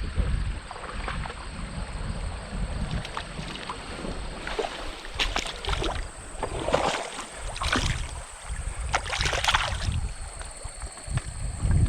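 Wind buffeting the microphone in a steady low rumble, with several brief splashes of stream water.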